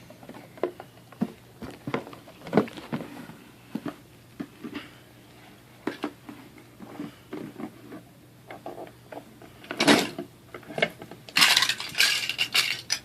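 Small plastic toy blocks and pieces clicking and knocking as they are handled and set down, with a denser rattle of pieces near the end.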